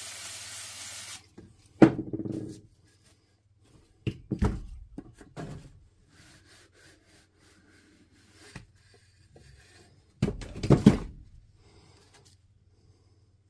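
Aerosol can of electrical contact cleaner spraying with a steady hiss that cuts off about a second in. After it come several knocks and rubbing sounds as the rotary hammer's cylinder tube is handled and cleaned, the loudest near the end.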